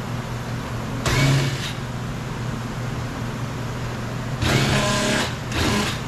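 Cordless drill/driver spinning out the door trim panel's screws in three short whirring bursts, one about a second in and two close together near the end, over a steady low hum.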